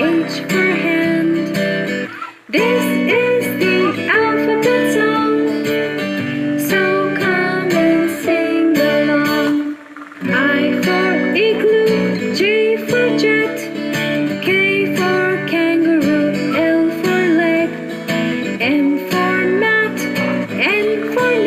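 Children's song music with a guitar accompaniment, briefly dropping out about two and a half seconds in and again near ten seconds.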